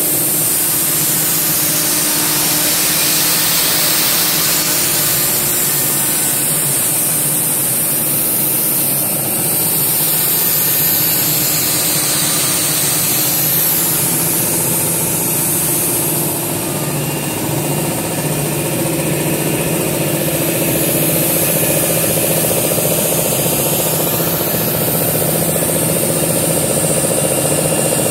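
SUDA A7S ATC CNC router running: its spindle turns a cutter through a wood-based panel sheet, giving a steady, loud machine noise with a strong high hiss over a low hum.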